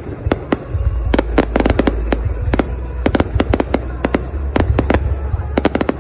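Aerial fireworks bursting overhead, the shells' stars crackling in rapid clusters of sharp pops about every second, over a steady low rumble.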